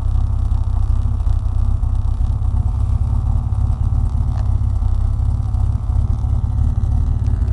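3.4-litre V6 engine in an MGB idling steadily with a deep, even rumble, oil pressure up.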